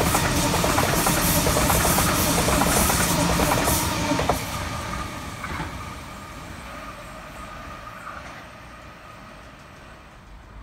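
A Sydney Trains Waratah (A set) double-deck electric passenger train running past at speed, with dense wheel and rail clatter. The last car clears about four seconds in, and the sound drops sharply and fades as the train draws away.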